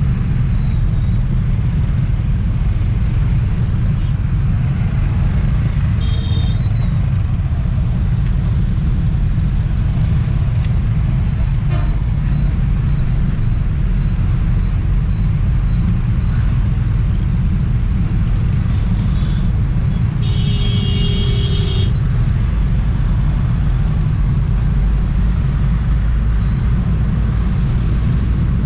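Steady low rumble of wind and engine noise picked up by a motorbike-mounted action camera riding in dense scooter traffic. A vehicle horn toots briefly about six seconds in, and another sounds for about a second and a half near twenty seconds.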